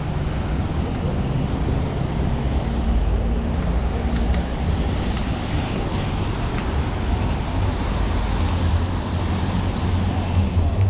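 Street traffic noise: a steady low engine rumble from passing vehicles over a wash of road noise.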